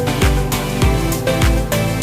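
Background music with a steady, fast beat: bass drum and pitched instruments.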